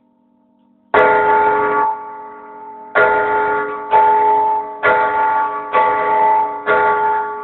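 Large church bell struck by its rope-pulled clapper in festive ringing. A faint fading hum, then six loud strokes, the first about a second in and the rest about a second apart after a short pause, each ringing on into the next.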